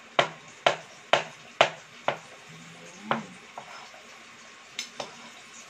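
Kitchen knife slicing canned button mushrooms on a white plastic cutting board, the blade knocking sharply on the board about twice a second for the first two seconds, then a few more spaced-out knocks.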